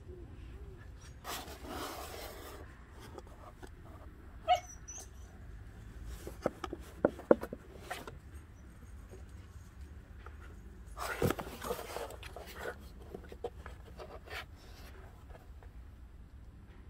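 Cardboard boxes rustling and bumping as cats shift about in them, in scattered bursts with a few sharp clicks. One short animal call sounds about four and a half seconds in.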